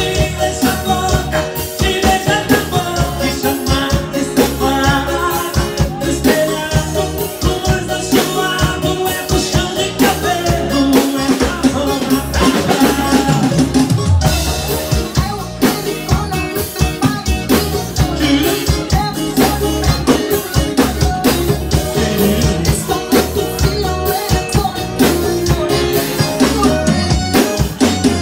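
Live music: an amplified acoustic guitar played over a drum kit keeping a steady beat.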